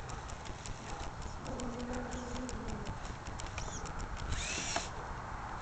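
Irregular clicking and crunching, with a brief motor hum that drops away about three seconds in, typical of a radio-controlled rock-crawler truck working over rough ground.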